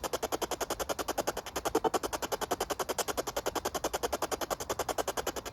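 A ghost-box (spirit box) radio scanner sweeping through stations, chopping the hiss into rapid even pulses about ten a second, with brief fragments of radio sound in among them.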